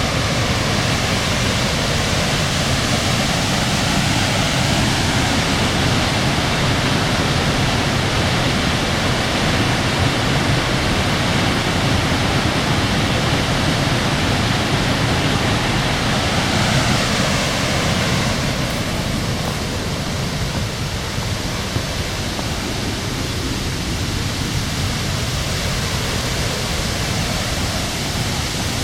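Steady rush of a nearby waterfall, an even roar of falling water with no break.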